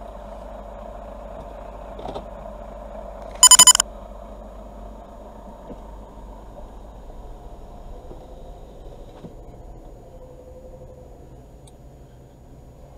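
Car engine and cabin noise as the car moves off from a stop and picks up speed. About three and a half seconds in comes a loud, short burst of quick high-pitched electronic beeps.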